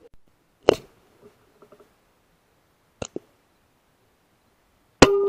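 Air rifle shots: one loud sharp report about a second in, a quieter quick double click near the middle, and another loud report near the end followed by a ringing tone that dies away.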